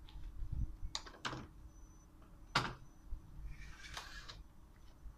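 A few sharp clicks and knocks, the loudest about two and a half seconds in, as the telescoping trolley handle of a Gotway ACM electric unicycle is pulled out and handled, followed by a short scraping noise near the end.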